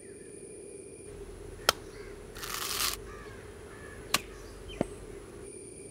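Crows cawing faintly in the background, with a few sharp clicks and a short rustling scrape as a dry coconut husk is handled.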